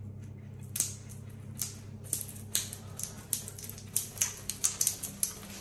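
A caulk spatula is drawn down a silicone joint over rough, ribbed tiles, giving a string of irregular sharp clicks and scrapes that come faster in the second half. A low steady hum runs underneath.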